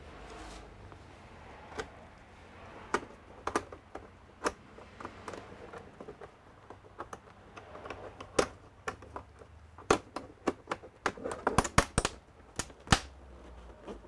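Irregular keystrokes and clicks on a computer keyboard, with a quicker run of them about eleven to twelve seconds in.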